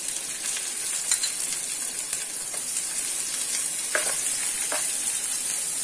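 Chopped onions sizzling steadily in hot oil in a nonstick frying pan, stirred with a spatula that scrapes the pan a few times.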